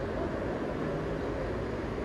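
Steady low rumble of vehicle noise, even throughout, with no distinct knocks or tones.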